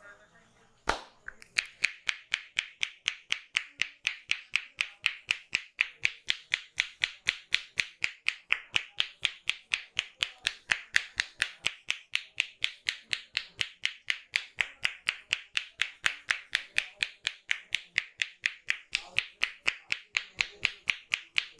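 A barber's hands rhythmically tapping and slapping on a person's head during a head massage, a fast, even patter of about four sharp slaps a second. It starts with a single knock about a second in.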